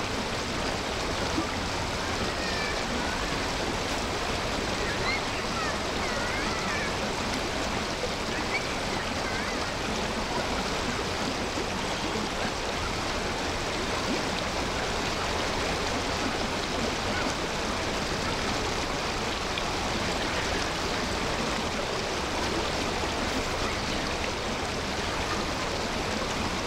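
Steady rush of flowing water, high and fast after heavy rain, with a few faint high chirps in the first few seconds.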